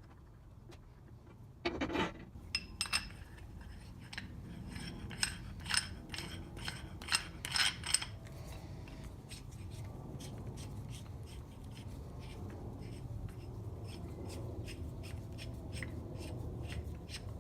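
Metal tools and cast-iron parts clinking and knocking together as a power hacksaw is reassembled, several sharp ringing clinks in the first half. Then a long run of light, regular clicks, about two a second, like a ratchet being worked.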